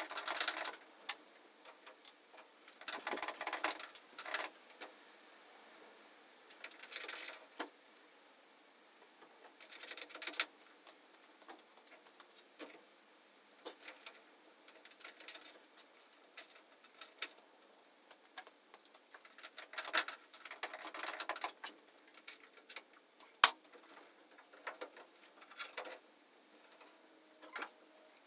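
Intermittent rustling and scraping as a polycarbonate canopy is handled and fitted onto a microlight's frame, with scattered small clicks and one sharp tap about three quarters of the way through.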